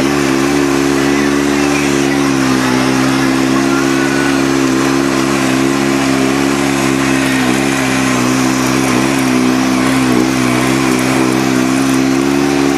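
Side-by-side UTV engine pulling at steady, slightly wavering revs, heard from on board while driving a rough gravel trail, over a constant hiss of tyre and trail noise.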